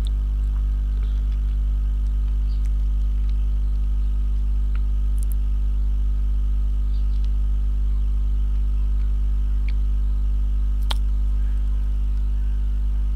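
Steady low hum, unchanging throughout, with one faint click about eleven seconds in.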